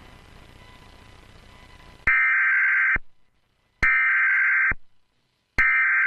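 A faint hiss of static for about two seconds, then three identical buzzy data bursts of an Emergency Alert System SAME header, each just under a second long with about a second of silence between them.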